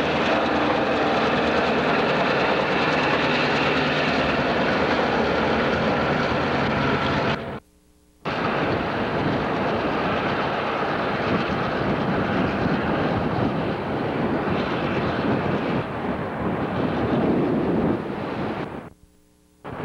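Conrail diesel locomotives, including a GP10, with their engines running in a steady loud drone that carries level engine tones. The sound cuts out twice to near silence for under a second, about a third of the way in and near the end, where the footage is edited.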